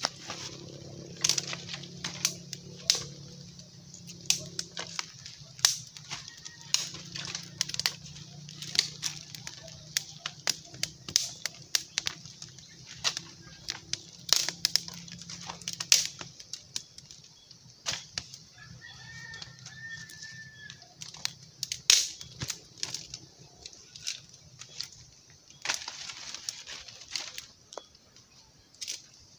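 Small wood fire crackling and popping under green bamboo cooking tubes, with sharp, irregular snaps of dry twigs as sticks are fed in.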